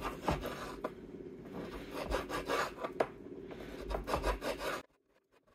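Kitchen knife cutting bacon into small pieces on a wooden cutting board: irregular strokes and scrapes of the blade against the wood. The sound cuts off suddenly near the end.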